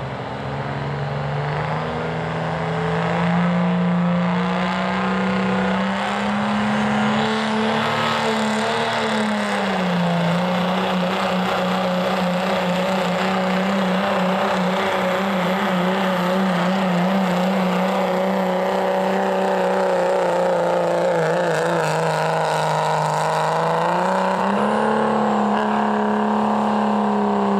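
Modified street diesel pickup's engine running hard at high revs while it drags a weight-transfer sled down the track. The engine note climbs over the first few seconds, dips about ten seconds in, holds steady and rises again near the end.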